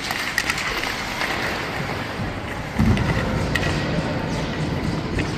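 Ice hockey rink sounds: a steady scrape of skates on ice with several sharp clacks of sticks and puck, then a louder low rumble from about three seconds in.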